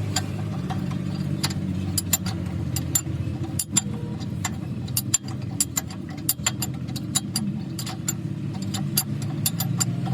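An engine running steadily, with many irregular sharp clicks over it.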